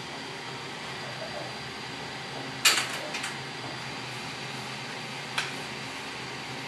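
Steady room hum with a fan-like hiss, broken about two and a half seconds in by a sharp clatter of dishes with two lighter knocks after it, and a single clink near the end.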